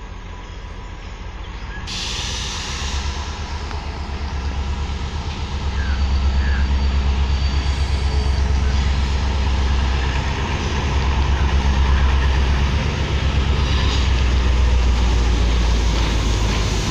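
Sri Lanka Railways M7 class diesel locomotive approaching at low speed. Its engine's low rumble grows louder as it nears, then holds steady and loud from about six seconds in.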